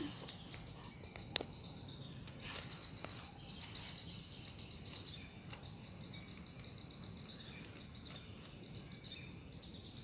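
Faint, steady insect trilling, like crickets, with a few soft clicks and rustles of hands firming soil around a plant in a ceramic pot.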